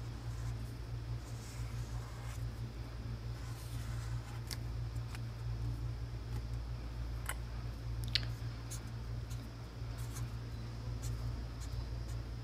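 Felt-tip marker drawing on paper: faint scratchy strokes with scattered light clicks and taps, over a steady low hum.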